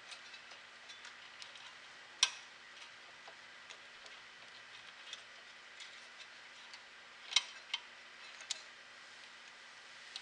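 Faint, scattered clicks and taps of small carburetor parts being handled and fitted together by hand, with a few sharper clicks about two seconds in and around seven to eight seconds, over a faint steady hum.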